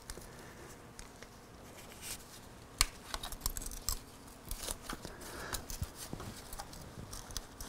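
Scattered small metal clicks and clinks of band-type oil filter wrenches being handled and fitted around a motorcycle oil filter, with one sharper click about three seconds in.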